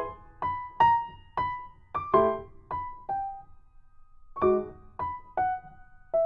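Background piano music: a slow melody of single struck notes, each ringing and fading, with a short pause about halfway through.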